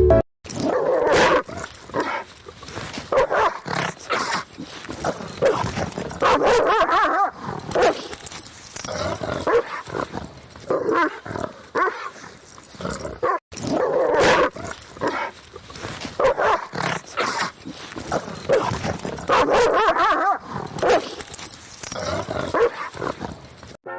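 A dog vocalizing in irregular short bursts, with a brief gap about halfway through.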